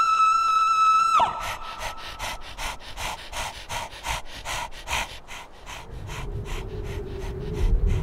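Cartoon seal's voice holding one long, high cry that drops away sharply about a second in, then rapid panting, about three breaths a second. A low hum comes in near the end.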